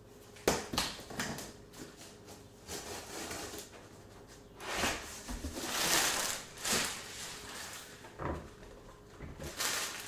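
A cardboard box being opened with sharp knocks and clicks, then a plastic bag crackling loudly as it is pulled off a subwoofer about five seconds in, followed by more knocks of handling.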